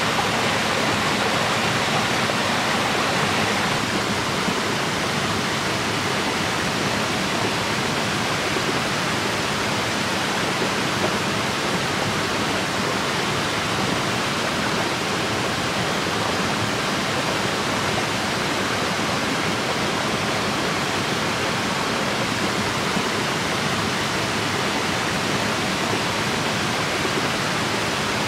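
Steady rushing of a small waterfall pouring into a stream, an even hiss of falling water.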